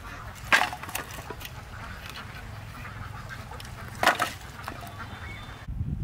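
Farm waterfowl calling: two loud calls, about half a second in and again about four seconds in, over a steady low hum. Near the end the sound cuts abruptly to a different, lower noise.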